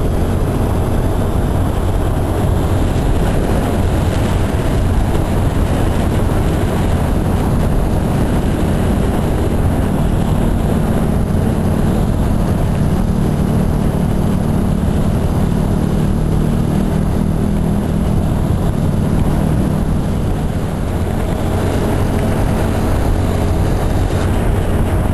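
Motorcycle riding at speed: a steady rush of wind on the microphone mixed with the engine and road noise, with a slightly stronger low engine hum through the middle.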